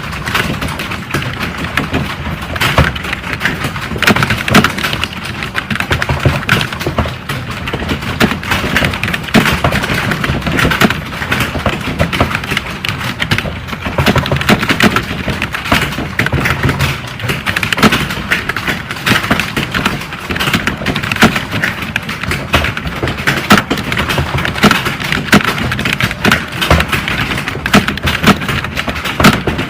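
Fast typing on computer keyboards: a dense, continuous clatter of keystrokes with no pauses.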